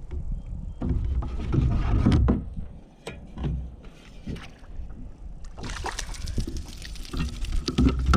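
Knocks and handling noise on a kayak on the water, with a rushing hiss that starts about two-thirds of the way through.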